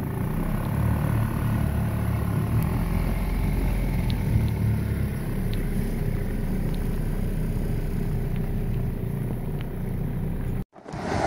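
Small outboard motor pushing a J/24 sailboat at low speed, a steady low drone with a few light ticks over it. It cuts off abruptly shortly before the end, giving way to wind and waves.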